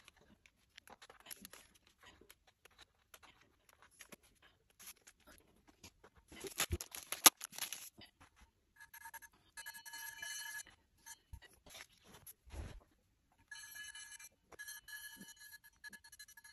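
Handling of a brass Chladni plate and its paper instruction sheet: rustling and small clicks, with a loud cluster of knocks about halfway through as the plate is fitted. In the second half a steady high ringing tone with several overtones sounds in broken stretches.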